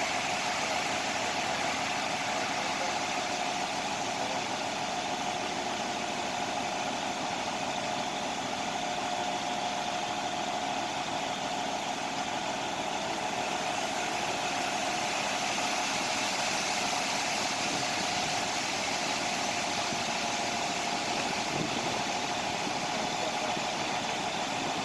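A concrete truck's diesel engine runs steadily, with a constant whine over the engine noise.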